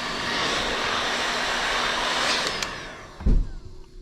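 Hot-air tool (thermal air circulator) blowing steadily, then switched off and winding down with a falling pitch nearly three seconds in, followed by a single dull thump.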